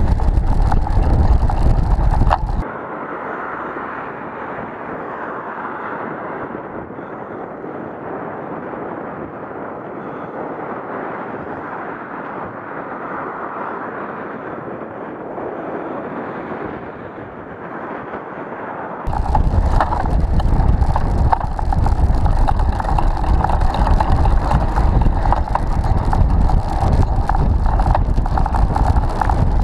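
Wind rumble on a bike-mounted camera's microphone while cycling along a road, with cars passing close by. From a few seconds in until about two-thirds through, the sound changes to a quieter, duller steady hiss of road and tyre noise without the wind rumble, then the wind rumble and traffic return.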